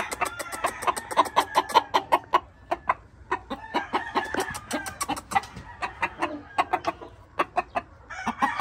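Gamecock clucking, mixed with a quick series of short sharp clicks or taps that are densest in the first couple of seconds and sparser after.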